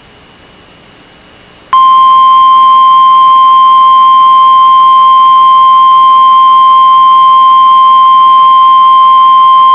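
Emergency Alert System attention signal: the National Weather Service's single 1050 Hz warning alarm tone, one loud, steady pitch starting about two seconds in after a faint hiss. It is the alert tone that announces a weather warning or watch broadcast.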